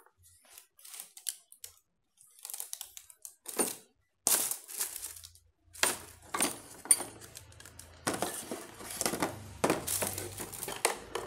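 Plastic bag crinkling and rustling as it is handled, with a few sharp knocks, louder and busier from about four seconds in.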